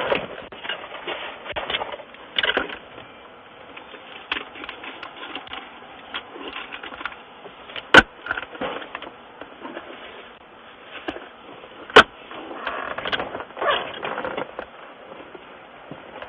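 Thin, low-fidelity video doorbell microphone audio of faint outdoor background noise with scattered rustles and soft knocks. Two sharp clicks about four seconds apart are the loudest sounds.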